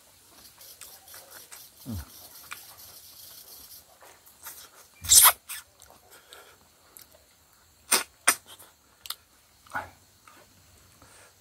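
Mouth sounds of a man eating rice and pork by hand: chewing with a few sharp lip-smacks, two of them close together about eight seconds in. A louder short noisy sound comes about five seconds in.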